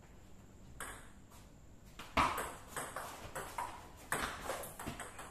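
Table tennis ball being hit back and forth in a rally: sharp clicks of the ball on the paddles and table, a few at first and then a quick run of hits from about two seconds in.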